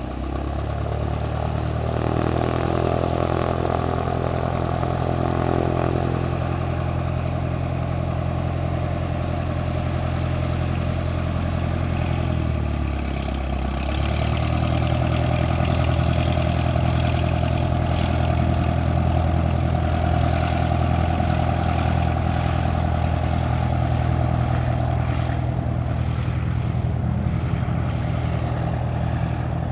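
Cessna 172S Skyhawk's four-cylinder Lycoming engine and propeller running steadily at taxi power as the plane rolls past. The pitch dips briefly about twelve seconds in, then steadies and grows a little louder.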